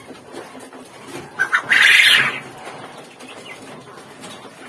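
Young quail in a rack of wire cages, with a short, loud burst of wing-flapping about two seconds in as a bird is handled.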